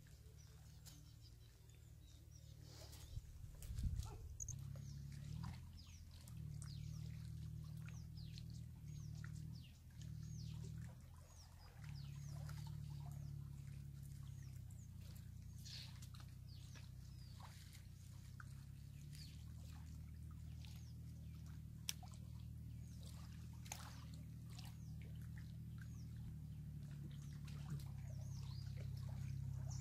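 Small birds chirping: many short, high calls scattered throughout, over a steady low hum. A brief thump comes about four seconds in.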